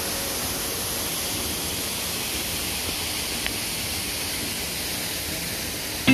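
Frozen waterfall with water still running behind its ice: a steady, even rush of falling water.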